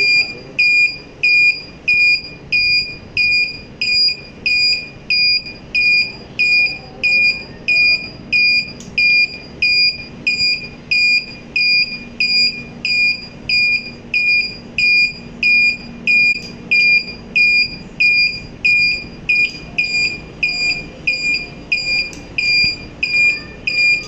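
Honda CD70 turn-signal buzzer beeping in time with the flashing indicator: a short, high, clear beep repeating evenly about three times every two seconds.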